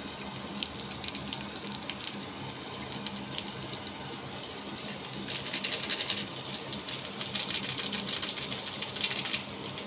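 Light, rapid clicking and tapping from kitchen utensils or a small container being handled, sparse at first and then dense and continuous for about four seconds in the second half.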